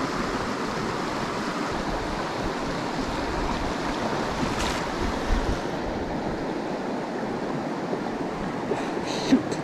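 Steady rush of a shallow, rocky stream running over riffles, with a brief sharp sound near the end.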